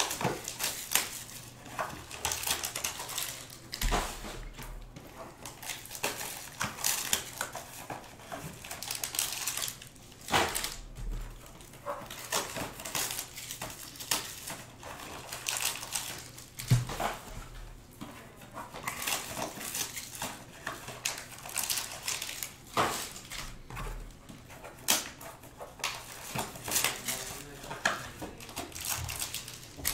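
Crinkling and rustling of foil card packs and plastic shrink-wrap as sealed Topps Tier One boxes are opened and the packs pulled out, with irregular sharp crackles and light knocks of boxes and packs set down on a table.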